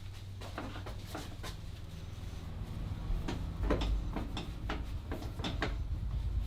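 Hands working a person's back in a massage: a scattered series of sharp slaps and clicks, a few near the start and a denser run in the second half, over a low steady hum.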